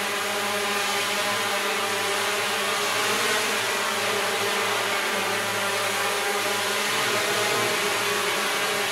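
Hexacopter drone's six electric motors and propellers running steadily as it hovers, a many-toned buzzing hum whose pitch shifts slightly as the motors correct its position.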